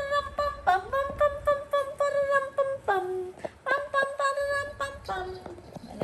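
A high voice making a run of held notes at one pitch, each about half a second to a second long, some sliding up or down into the note.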